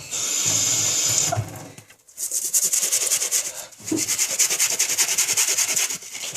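Toothbrush scrubbing a sneaker's rubber sole in fast back-and-forth strokes, about eight a second. It starts about two seconds in, with a brief pause partway. Before it comes a steady hiss of a little over a second.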